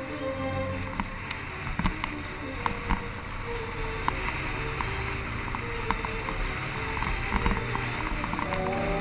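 Motorcycle engine running at a slow riding pace under a steady rush of noise, with scattered sharp clicks.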